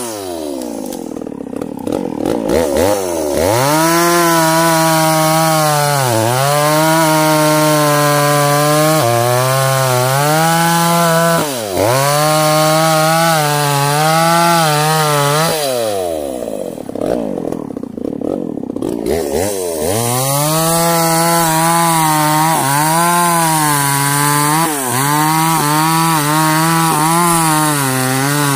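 Two-stroke chainsaw cross-cutting felled sengon logs, running near full throttle in the cut. Several times the engine speed sags and falls away, then revs back up as the chain is worked through the wood.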